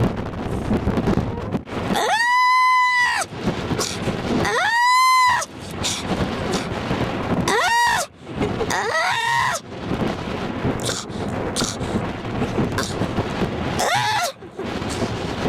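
White-coated seal pup wailing: about five high, drawn-out cries, the first two the longest, each rising, holding, then falling in pitch. A steady rumbling noise runs underneath.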